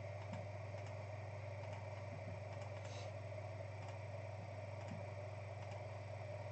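Steady room tone with a constant low electrical hum and a few faint, short clicks.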